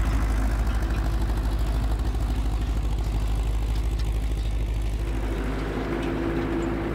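Farm tractor engine running steadily under load while pulling a cultivator with a string roller across the field, a deep pulsing rumble whose note changes about five seconds in.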